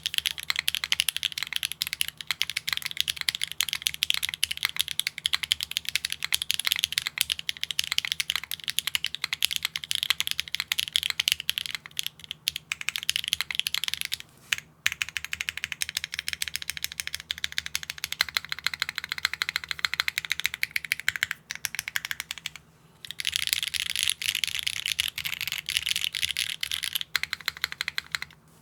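Fast typing on a Neo65 Core Plus mechanical keyboard with HMX Yamatake Light Tactile switches on an aluminium plate and no foam: a dense, continuous run of keystroke clacks, pausing briefly about halfway through and again about three quarters through.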